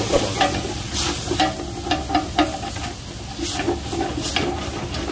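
A spoon stirring and scraping in a cooking pot, with irregular clinks against the pot, while tomatoes and spices sizzle in it.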